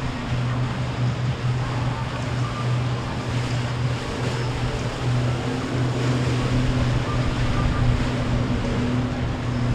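A passing boat's engine running with a steady low drone, a second higher tone joining about halfway through, over wind and water noise.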